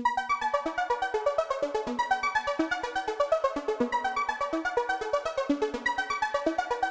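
Background electronic music: a synthesizer melody of short stepping notes over a fast, even beat.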